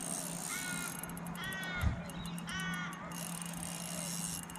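A crow calling three times, each caw a short harsh call about a second apart.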